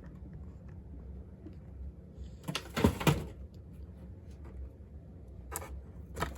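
Handling noises from unboxing diecast cars: a burst of scuffing knocks a little under halfway through, then two short clicks near the end, over a low steady hum.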